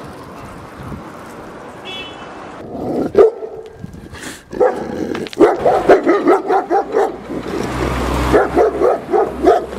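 A dog barking: one bark about three seconds in, then a fast run of barks from about halfway through. A low steady rumble comes in near the end.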